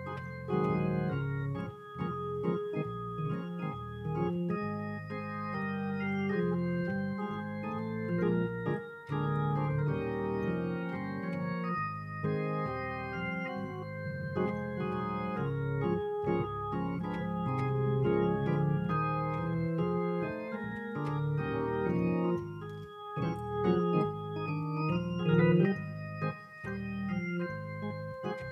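An organ playing held chords, the notes sustained and changing every second or so.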